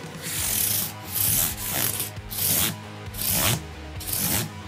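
Abrasive block rubbed back and forth along a guitar's metal frets to polish them after levelling and crowning: about six short scrubbing strokes, each a hiss.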